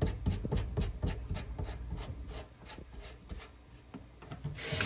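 Metal faucet lever handle being fitted and worked by hand: a run of small clicks and rubbing that fades, then just before the end the tap is opened and water suddenly starts running into the sink.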